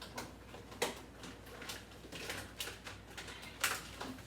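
Food containers and jars being handled and moved about in a refrigerator: a series of sharp clicks and knocks, the loudest near the start and about three and a half seconds in.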